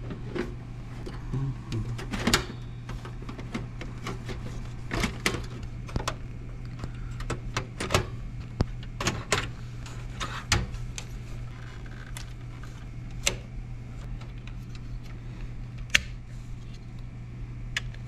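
Scattered clicks and knocks of plastic and metal as a desktop computer's side cover is lifted off and the old mechanical hard drive is unplugged and worked out of its plastic drive caddy, over a steady low hum.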